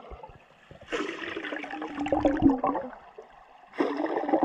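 Air bubbles blown out underwater by a diver shooting horizontal bubble rings, heard through an underwater camera. There are two bursts: one about a second in that lasts nearly two seconds, and another that starts near the end.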